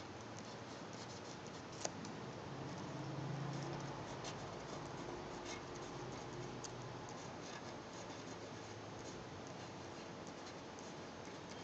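Fountain pen nib scratching on paper as letters are written by hand: a faint dry scratch with small ticks from each stroke. One sharp click about two seconds in.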